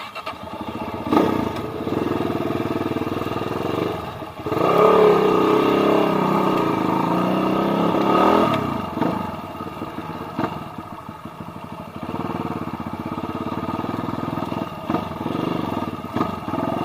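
Trail dirt bike engine revving, with a hard, loud rev lasting about four seconds in the middle, then dropping back to lower, uneven throttle.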